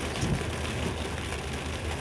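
Steady rain drumming on a car's roof and windshield, heard from inside the car, over a low steady hum, with a brief low thud just after the start.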